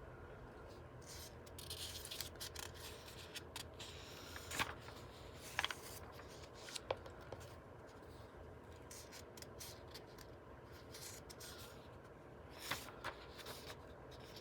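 Faint paper rustling and soft handling sounds as book pages are turned and touched, with a few short sharp clicks or taps, over a low steady room hum.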